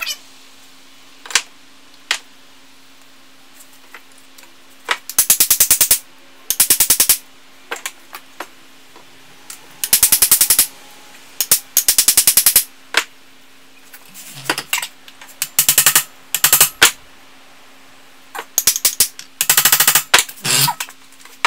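Bursts of rapid, evenly spaced hammer blows on the end of a hickory axe handle, driving the forged axe head onto the handle, with single knocks between the bursts. A faint steady hum runs underneath.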